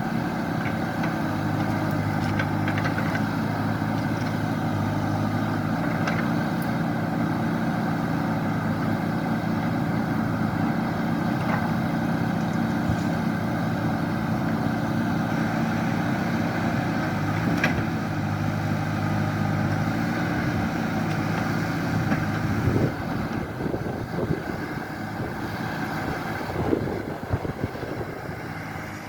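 An engine running at a steady speed for about 22 seconds. Then the steady note breaks up into a rougher, uneven sound with a few sharp knocks.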